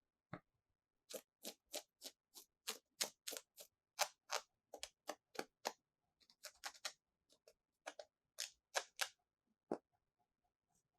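Small plastic toy pieces being handled, giving a run of light, sharp clicks and taps, about three a second, then fainter quicker clicks and a few last taps near the end.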